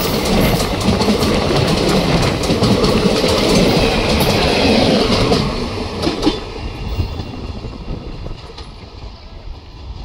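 Indian Railways passenger coaches of a departing express train rolling past, steel wheels rumbling on the track with sharp clicks over the rail joints. The sound eases off from about five seconds in and fades away as the train moves off.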